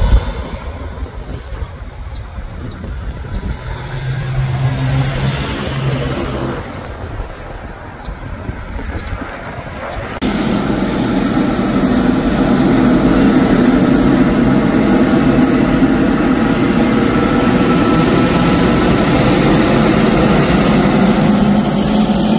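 Faint jet noise from a distant Airbus A320 on the runway. About ten seconds in, it cuts abruptly to the much louder, steady noise of a Boeing 777-300ER's GE90 engines as the airliner taxis past close by.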